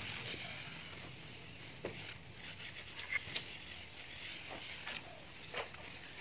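Steel plastering trowels scraping across wet cement render on a brick wall, with a few sharp taps and clicks scattered through.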